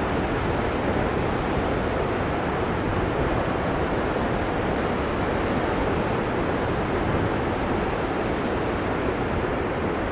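Ocean surf: waves breaking and whitewater washing in, heard as a steady, even rush of noise.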